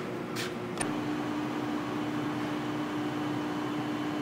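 CCI Citron surface grinder running with a steady machine hum, a short hiss near the start, and a sharp click just under a second in, after which the hum's tone settles slightly lower.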